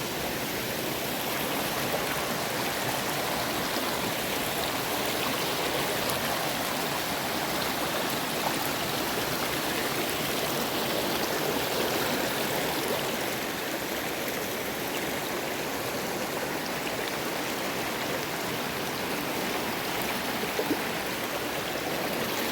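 A waterfall pouring into a deep river pool: a steady, unbroken rush of falling water.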